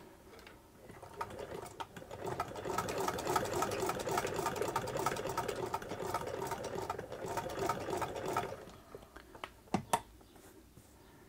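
Hand-cranked Jones Family CS sewing machine sewing a test seam through cloth, its needle and shuttle mechanism running in a quick, even clatter. It builds up about a second in and stops about two-thirds of the way through, leaving a couple of single clicks near the end. The freshly serviced machine is picking up the bobbin thread and not skipping stitches.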